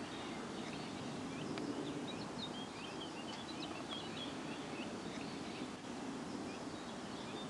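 Small birds chirping in quick short calls over a steady outdoor background noise, the chirping busiest in the middle of the stretch.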